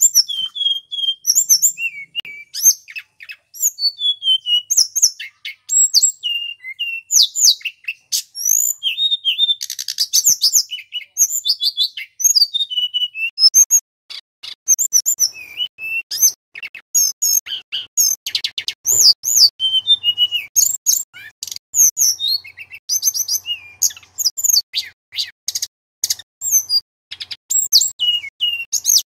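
Male hill blue flycatcher (tledekan gunung) singing a long, varied song of rapid high whistles, quick sweeping notes and fast trills, phrase after phrase with only short breaks.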